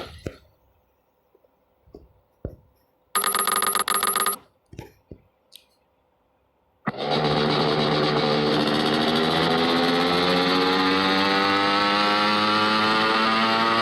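Scooter engine sound effect: the engine cuts out at the start, then a few small clicks and a short ringing electric buzz about three seconds in. About seven seconds in the engine comes back abruptly and runs, its pitch rising steadily as it speeds up.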